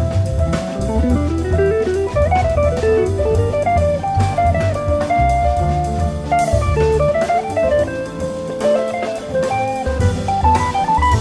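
Background music: a jazzy instrumental with a guitar playing a stepping melody over a bass line and a drum kit.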